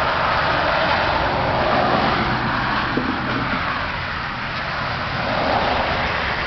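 Road traffic noise: the hiss of cars passing on the street, swelling twice and fading between.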